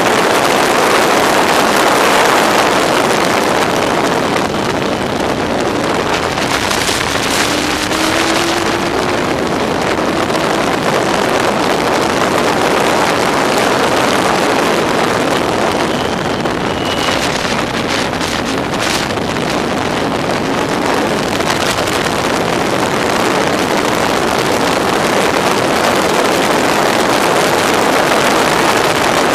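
Onboard sound of a Locost race car with a Yamaha R1 motorcycle engine at racing speed: a steady engine drone under heavy wind buffeting on the camera microphone.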